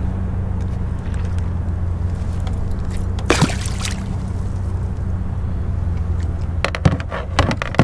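Water lapping and splashing against a camera at the surface, in brief wet bursts once about three seconds in and several times near the end, over a steady low hum.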